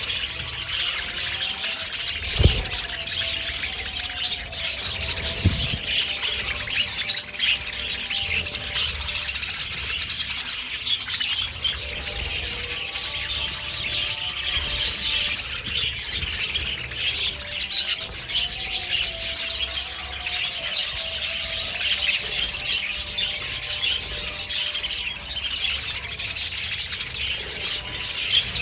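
A flock of budgerigars chattering and warbling continuously, many birds at once. Two dull low thumps come in the first few seconds.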